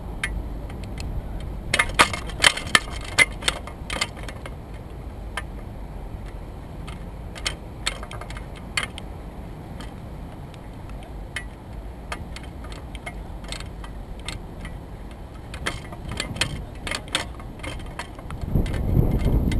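Scattered light clicks and rattles, bunched about two to four seconds in and again near the end, over a steady low rumble of wind on the microphone that swells in a gust at the very end.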